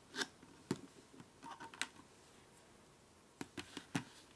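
Light plastic clicks and taps as small plastic clamps are handled and pushed onto the rim of a clear plastic dome stadium: a few scattered clicks, a quiet stretch, then a quick cluster of clicks near the end.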